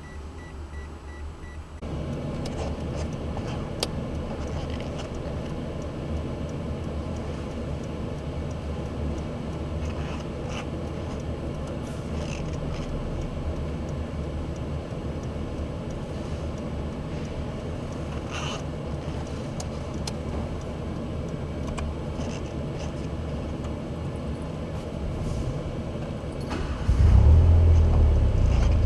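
A car's warning chime beeps evenly, then about two seconds in the engine starts and settles into a steady idle. Near the end a louder, deeper rumble comes in.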